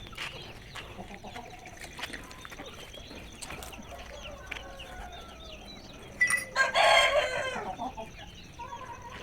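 A rooster crows once, loud and about a second and a half long, starting about six seconds in and falling away at the end, over faint chirping and clucking from poultry and birds.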